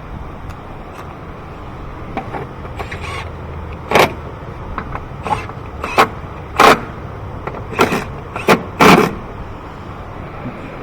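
Sharp knocks and clatter of engine-bay parts being handled and set back in place, about seven of them in the second half, over a steady background noise.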